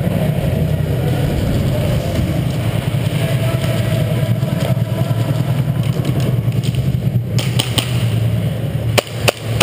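Steady low rumble on the camera's microphone. Near the end it is broken by a quick string of sharp cracks from airsoft guns firing.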